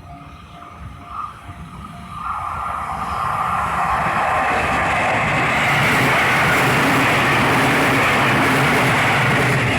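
Level-crossing warning bell ringing at the start, then a train coming through the crossing: a broad, loud rush of wheels on rails that builds from about two seconds in and holds steady.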